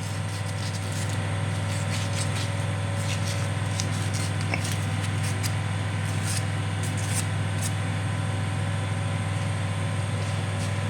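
Steady motor hum, typical of a workshop air compressor running, with scattered light clicks and scrapes of brake parts being handled and cleaned.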